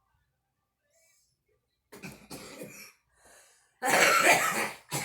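A woman coughing while smoking: a rough cough about two seconds in, a short breath in, then a louder fit of coughs near the end.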